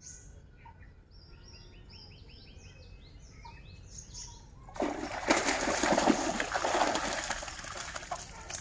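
A small bird chirps a quick series of short falling notes. About five seconds in, loud water splashing starts and lasts around three seconds, as a cast net is hauled through the water.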